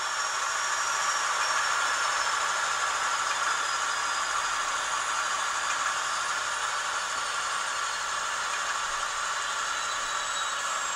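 Simulated diesel prime mover of an N scale SC-44 Charger's TCS WoW Sound decoder running steadily through the model's tiny speaker, thin and without bass. It has just been notched down; the level rises over the first couple of seconds, then eases slightly.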